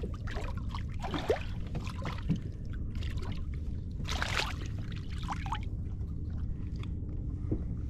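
Water sloshing around a small fishing boat over a steady low rumble, with a brief splash about four seconds in.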